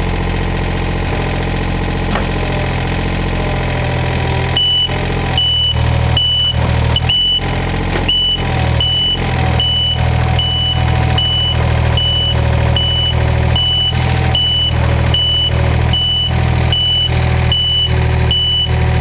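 Komatsu mini excavator's diesel engine running steadily as the machine tracks; about four and a half seconds in its travel alarm starts, a high beep repeating roughly three times every two seconds.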